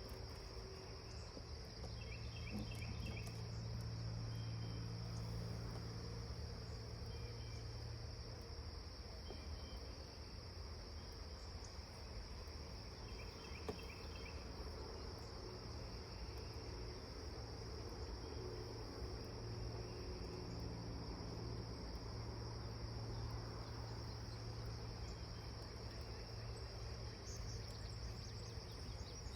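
Crickets trilling in a steady high-pitched drone over a low steady hum, with a few brief high chirps every few seconds.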